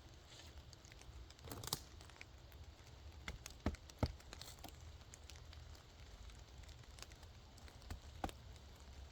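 Campfire crackling softly, with a few scattered sharp pops from the burning wood.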